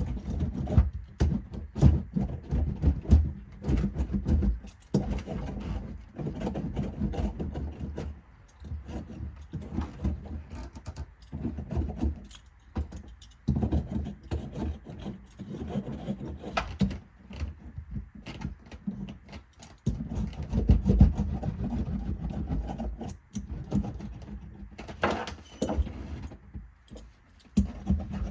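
Irregular knocks, thumps and scrapes of hands working butyl sound-deadening sheets onto a vehicle's sheet-metal interior panels, with sharp clicks scattered throughout.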